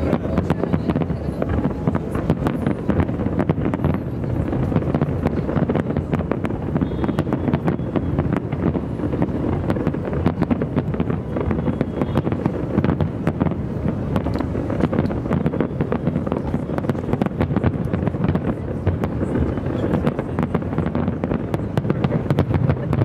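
Aerial fireworks display: a dense, unbroken run of bangs and crackling as many shells burst in quick succession.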